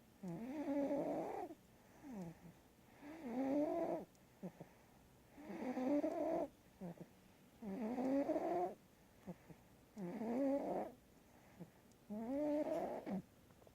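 Snoring in a steady rhythm: six snores about two seconds apart, each a pitched, wavering rasp of about a second, with quiet breaths between.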